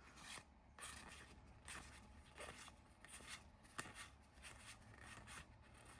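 Faint, soft slides and taps of Pokémon trading cards being flipped through one at a time, a stroke roughly every half second to second.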